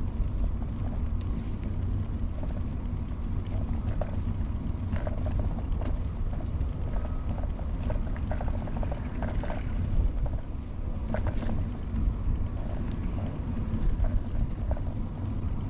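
Early-1970s Peugeot UJ-10 ten-speed bicycle rolling along: a steady low rumble of tyres on the trail, with scattered light clicks and rattles from the bike.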